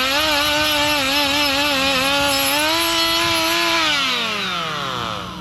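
Electric angle grinder running at speed, its whine wavering slightly as it works the exhaust pipe, then released near the end and winding down in a falling whine.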